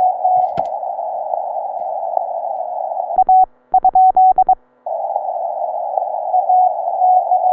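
Ten-Tec Eagle transceiver receiving 40-meter band hiss through a narrow CW filter, with a station's Morse code keyed at one steady pitch in it. About three seconds in comes a short, louder run of keyed Morse tones with clicks at each element, the operator's own sending heard as sidetone. The receiver hiss cuts out between and after them and comes back near the middle.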